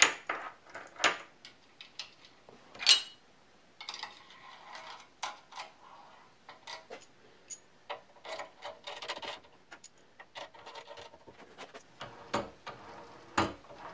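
Small metal hardware clicking and scraping as a slot nut and aluminium L-bracket are fitted onto an aluminium extrusion and tightened with a hex key: irregular light clicks and taps, with one short metallic ring about three seconds in.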